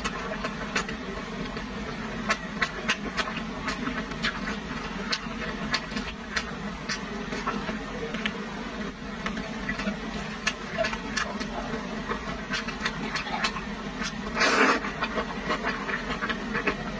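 Close-up chewing of a meatball, with many small wet clicks and smacks of the mouth. About fourteen seconds in comes one short, loud slurp of noodles.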